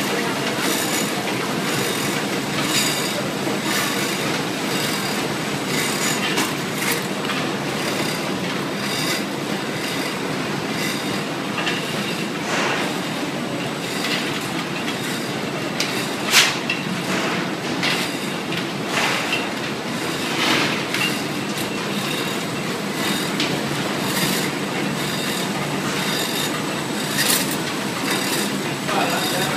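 Automatic caramel packaging machinery running: a steady mechanical clatter full of rapid clicks and knocks, with a sharper clack about sixteen seconds in and another near the end.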